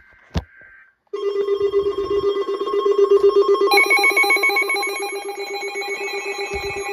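Electronic emergency alert alarm: after a click, a loud, rapidly pulsing alarm tone starts about a second in, and a second, higher alarm tone that steps up and down in pitch joins it about halfway through.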